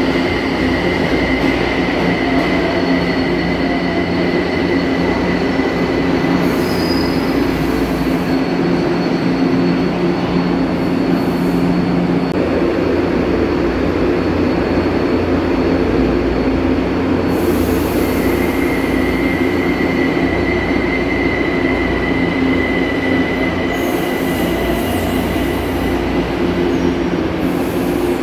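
São Paulo Metro J- and L-series trains moving through an underground station: a continuous rumble of the cars running along the platform, with a high steady whine that drops out about a third of the way in and returns about two-thirds through. Several brief hisses are heard over it.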